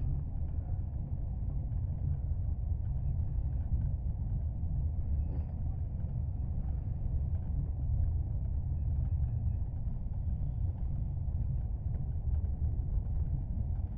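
Steady low rumble of a moving train, heard from inside the passenger coach.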